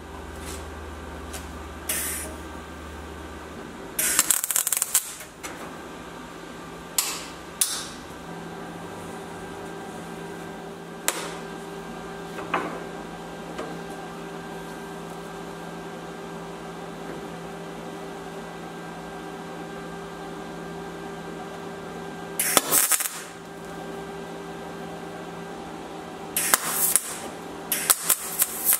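MIG welder tacking the sheet-steel door sill: short bursts of welding crackle, the longest about four seconds in and a quick series near the end, over a steady hum.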